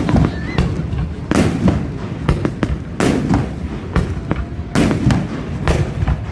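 Aerial fireworks bursting: about five loud booms, a second or two apart, with smaller pops and crackles between them over a steady low rumble.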